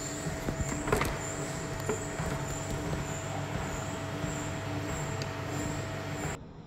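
Treadmill running at walking pace: a steady motor and belt hum with a regular pulsing of footsteps on the belt, and one sharp click about a second in. The sound cuts off suddenly near the end.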